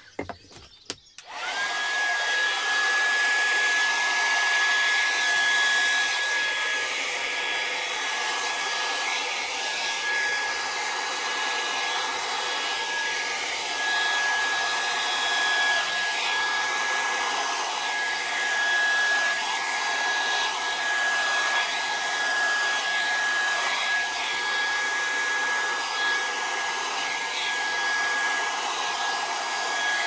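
Handheld blow-dryer starts up about a second and a half in, its whine rising and then holding steady over a loud, even rush of air as it blows acrylic paint across a canvas.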